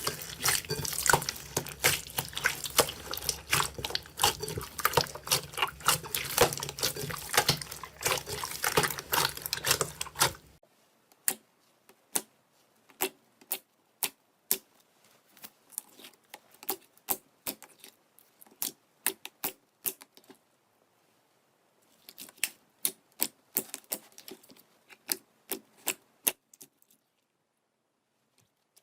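Slime being squeezed and worked by hand: a dense run of wet crackling clicks for about ten seconds, then a quieter stretch of separate sticky pops and clicks that stops shortly before the end.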